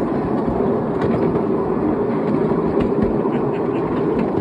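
Miniature railway passenger carriages rolling along the track: a steady rumble of wheels on rails, with faint light clicks.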